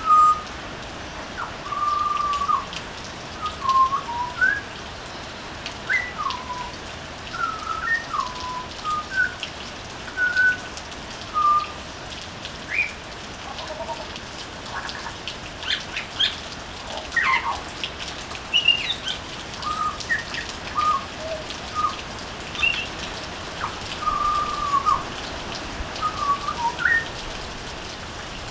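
A butcherbird singing a long, varied phrase of short, clear whistled notes, some sliding up or down in pitch, over a steady patter of rain.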